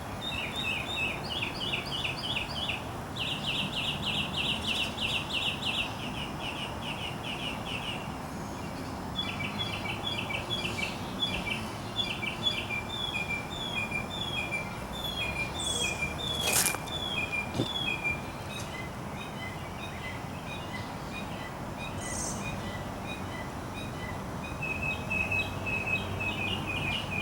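Songbirds singing: fast trills of repeated high notes, then a run of evenly spaced chirps after a short pause, with the trilling returning near the end, over a steady outdoor noise haze. One sharp click about two-thirds of the way through.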